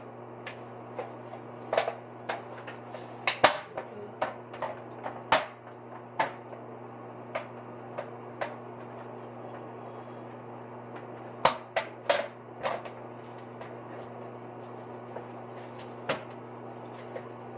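Irregular plastic knocks and clicks as a bidet toilet seat is pushed and worked onto its mounting plate, in two clusters, over a steady low hum.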